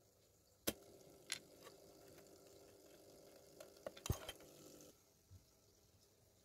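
Faint clicks and small knocks of speaker wire being handled and pushed into a small amplifier's spring-clip speaker terminals. There are a few sharp clicks, with a cluster about four seconds in, over a faint steady hum that stops about five seconds in.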